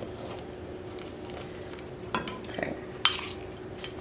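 A nylon spoon stirring and scraping through a thick butter-based sauce in a saucepan, over a faint steady hum. A few light knocks and clinks against the pot come from about two seconds in, the sharpest about three seconds in.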